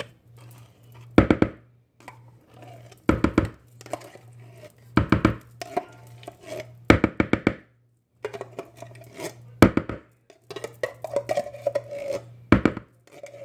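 Spoon scooping thick canned pumpkin out of a can and knocking it off into a mixing pitcher: short clusters of sharp knocks about every two seconds, with scraping between them, over a low steady hum.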